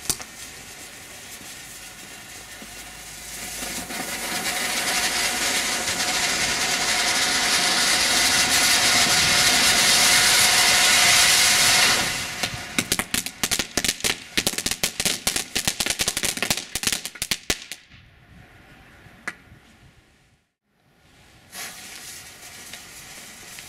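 Lesli Vegas Volcano's cone fountain firework burning: its spark spray hisses, swelling to a loud steady rush, then breaks into rapid crackling for several seconds before dying away. A fainter hiss starts again near the end.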